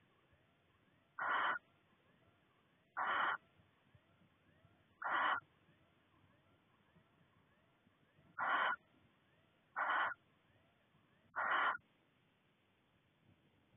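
Barn owl giving short rasping hiss calls, six in all, each about a third of a second, spaced a second and a half to three seconds apart.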